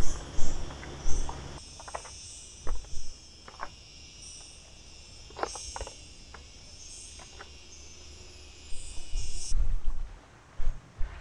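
Cicadas buzzing in a steady high chorus that drops away about nine and a half seconds in, with scattered low thumps and sharp clicks over it, a cluster of thumps near the end.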